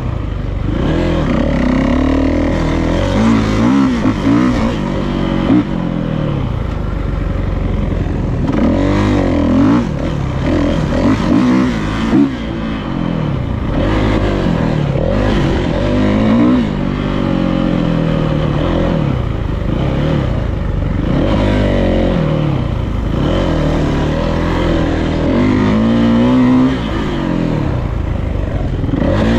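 Dirt bike engine being ridden hard, revving up and dropping back over and over, its pitch rising and falling every few seconds.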